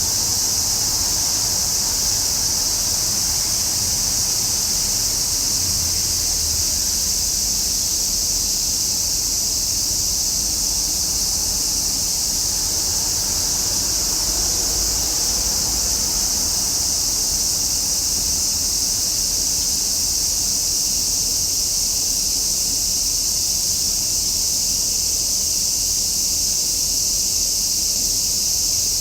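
Cicadas in summer, buzzing in a steady, unbroken chorus: a loud, even, high-pitched drone that does not let up.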